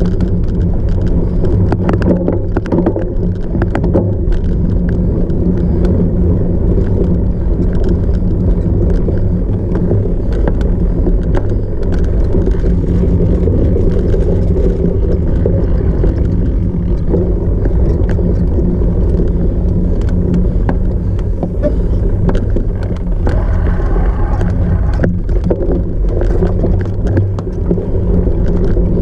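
Heavy wind rumble on the microphone of a camera carried on a cyclocross bike being raced off-road, with frequent sharp rattles and clicks from the bike jolting over rough ground.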